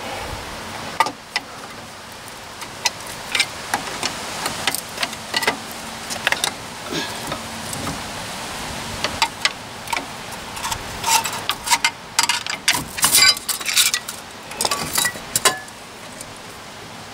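Metal clicks, clinks and scrapes as a big flat screwdriver prises a seized front brake caliper off its rotor and the worn-out brake pads come loose. The clinks grow thicker in the second half.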